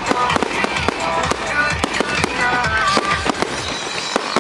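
Fireworks going off in quick succession: a dense run of sharp bangs and crackling pops, several a second, with music playing underneath.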